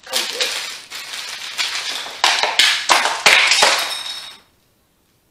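Clear plastic parts bag crinkling and crackling as it is handled and opened, with small taps and clicks. The sound cuts off abruptly to dead silence a little past four seconds in.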